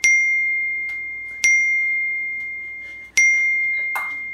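A small bell dinging three times, about a second and a half apart. Each ding is one bright high tone that rings on and fades slowly.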